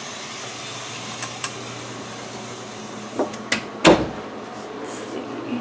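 Washing machine filling on a hot cycle, a steady hiss with a low hum. A few light clicks and knocks lead to one sharp thump like a door or cupboard being shut, about four seconds in.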